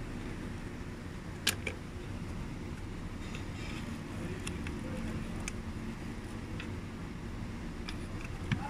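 Two sharp plastic clicks about a second and a half in, then faint light ticking and scratching as a toothbrush scrubs corrosion off the pins of a fuse-box wiring connector, over a steady low hum.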